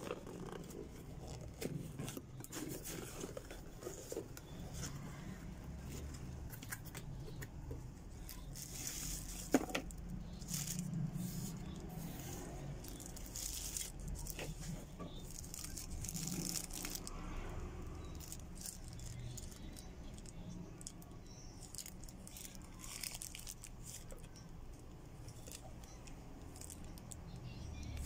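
Unboxing: cardboard box flaps rubbing and tearing, plastic bags crinkling, and the plastic-wrapped parts of a ring light and tripod rattling and clicking as they are handled, with one sharp knock about nine and a half seconds in.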